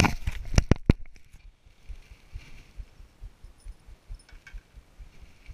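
Several sharp knocks and clatter in the first second as a person moves about on a wooden dock, then quieter, irregular low thumps.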